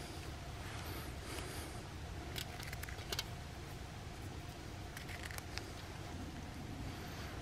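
Small knife cutting a raw potato by hand, giving a few short sharp clicks and taps as the blade goes through and chunks drop into a steel pot. A steady low rumble sits underneath.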